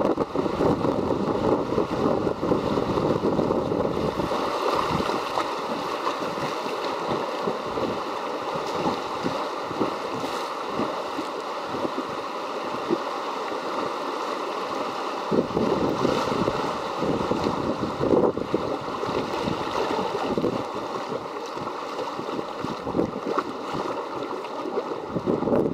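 River water rushing and splashing around a moving boat, with wind buffeting the microphone. The low wind rumble is heaviest in the first few seconds, eases, and comes back about midway.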